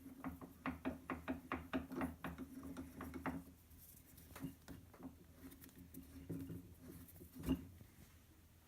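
A series of light knocks and clicks, about three a second for the first few seconds, then sparser, with one louder knock near the end, over a faint steady hum that stops shortly after it.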